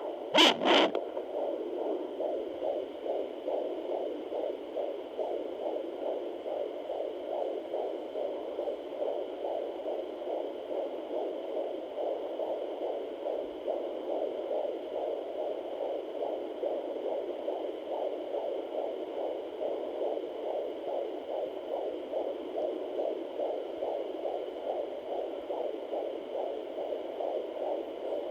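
Sonoline home fetal Doppler playing a 21-week fetus's heartbeat through its speaker: a fast, steady, even pulse. Two brief knocks right at the start.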